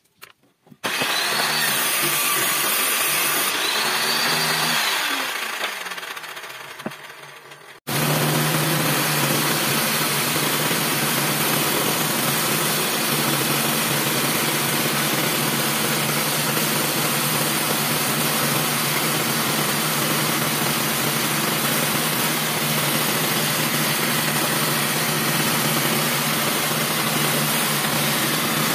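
A table saw runs for a few seconds and winds down. Then a band saw runs steadily, cutting lengthwise through a thick wooden block.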